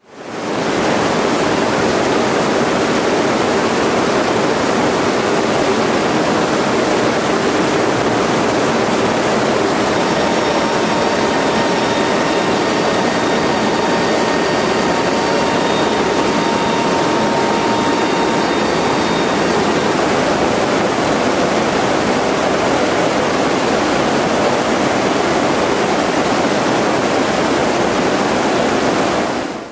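Steady roar of a Coast Guard C-130's four turboprop engines and rushing air, heard in the cargo hold with the rear ramp open in flight. Faint steady whines sit above the roar through the middle.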